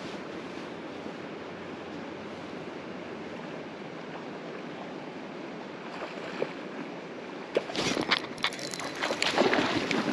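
Steady wind and water noise while a spinning reel is cranked on the retrieve. About three-quarters of the way in, a run of sharp knocks and splashes starts as a trout is hooked and thrashes at the surface.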